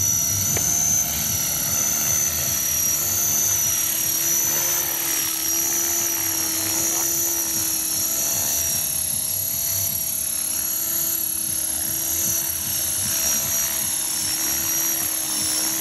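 Radio-controlled model helicopter in flight, its motor and rotors giving a steady high-pitched whine that wavers slightly in pitch.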